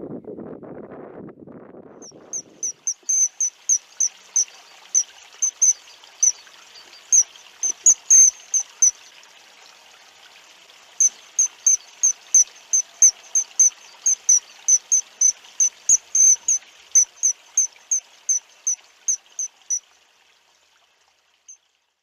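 Wind buffets the microphone for the first two or three seconds, then fades. After that comes a long run of short, high-pitched chirps, about three a second, over a faint high hiss; they pause for a couple of seconds midway and stop a couple of seconds before the end.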